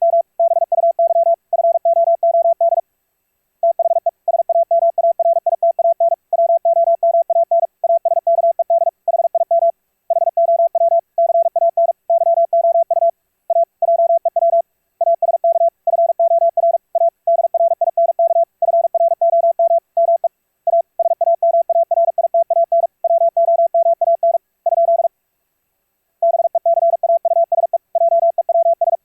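Morse code (CW) as a single steady-pitched audio tone keyed rapidly on and off in fast runs of dits and dahs, broken by a few brief pauses, the longest about a second near the end.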